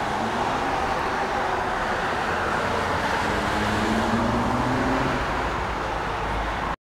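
Steady road traffic noise from cars on the road, with a vehicle's engine hum strongest a few seconds in.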